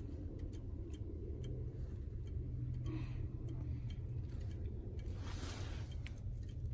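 Faint, irregular ticking from a 1991 Ford F-150's wiper system switched on while the wipers fail to run, over a low steady rumble; the owner blames the old wiper motor and switch.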